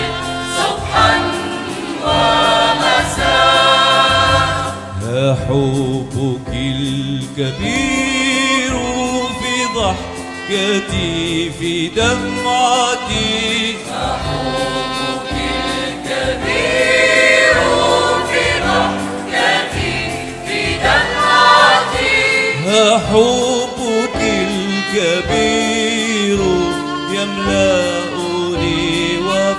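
Mixed choir of women's and men's voices singing a hymn together.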